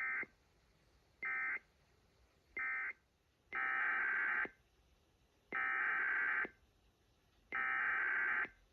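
Emergency Alert System SAME data bursts, a buzzy two-tone digital screech: three short end-of-message bursts closing one required weekly test, then, from about three and a half seconds in, three longer header bursts of about a second each, two seconds apart, opening the next test alert.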